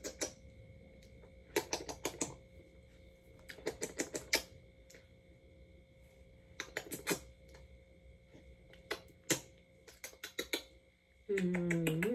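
Repeated smacking kisses on a baby's feet: quick runs of lip smacks in clusters every second or two. Near the end a short hummed voice sound.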